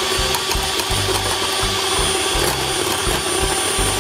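Electric hand mixer running at high speed, its wire beaters whipping egg whites to a froth in a glass bowl: a steady motor whine.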